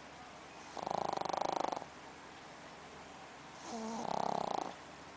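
Sleeping pug snoring: two snores about three seconds apart, each lasting about a second, the second starting with a brief whistling tone.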